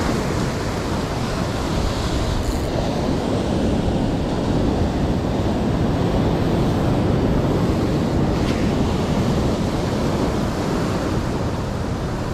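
Surf breaking and washing over a rocky shore in a steady, loud rush, with wind noise on the microphone.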